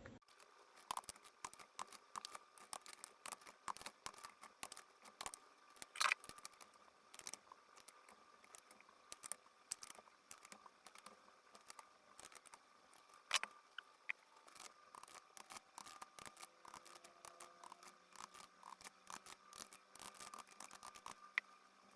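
Torque wrench ratcheting in faint, irregular clicks as the crankcase bolts of a Yamaha GP HO watercraft engine are tightened, with a couple of louder clicks about six and thirteen seconds in.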